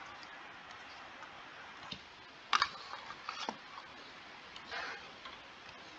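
A few short, sharp clicks and taps from a stylus touching down on a tablet screen as straight lines are drawn, spaced irregularly and clustered around the middle, over a steady low hiss.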